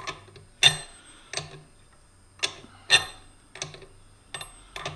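Sharp metallic clicks and clinks, about seven at uneven intervals, as an alligator wrench is repeatedly set on and turned on the square shank of a hand tap, running the tap the last of the way through a hole in cast iron.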